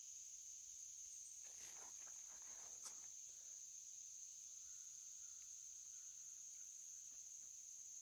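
Faint, steady high-pitched chorus of insects such as crickets, with a soft rustle about two seconds in and a small click near three seconds.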